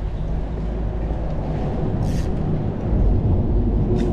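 Wind buffeting the microphone as a steady low rumble, with a short hiss about two seconds in and a click near the end.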